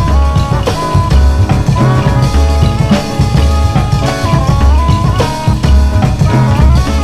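Rock music with a steady drum-kit beat under a melodic lead line.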